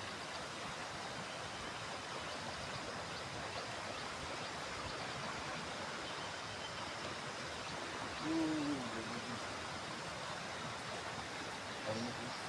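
Steady rushing of a fast-flowing mountain river. About eight seconds in there is a short, low pitched sound that dips and rises, and a briefer one near the end.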